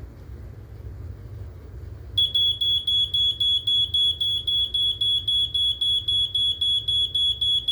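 BRK 86RAC smoke alarm's piezo horn sounding its test on battery backup with the AC power cut: a loud, high-pitched rapid beeping, about four beeps a second, starting about two seconds in.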